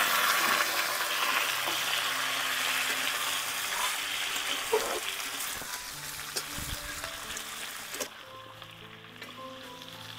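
Raw banana slices frying in hot oil in a kadhai, turned with a spatula: a dense sizzle that is loudest as the slices go in and slowly dies down, its high hiss dropping away about eight seconds in.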